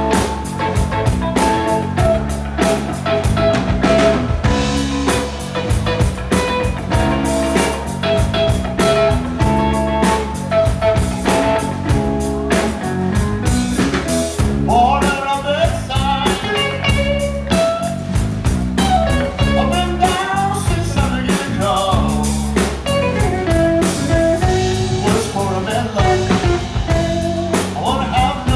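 Electric blues trio playing live: electric guitar, bass guitar and drum kit. A repeated riff gives way, about halfway through, to lead guitar notes bending up and down in pitch.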